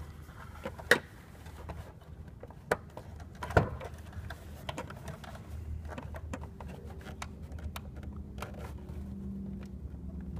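Small clicks and taps from fingers handling wires and the plastic push-lever terminal block of an irrigation controller while a stripped wire is pushed into its terminal, with sharper clicks about a second in and around three and a half seconds, over a low steady hum.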